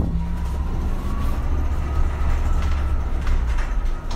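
MAN Lion's City Hybrid city bus under way: a steady low engine hum with a faint electric-drive whine that rises in pitch, then slowly sinks. A sharp knock comes at the very start.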